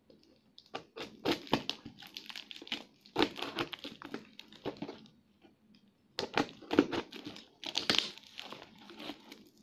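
Plastic wrapping and clear packing tape on a parcel crinkling and tearing as it is pulled open by hand, in several bursts with short pauses between them.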